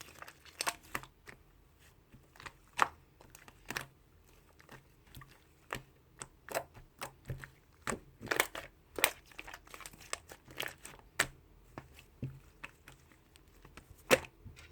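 Irregular crackling and crinkling: many sharp clicks at uneven spacing among fainter ticks, the loudest one near the end.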